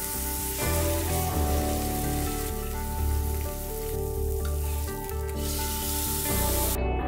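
Steak sizzling as it sears in a frying pan, with soft background music underneath; the sizzle cuts off near the end.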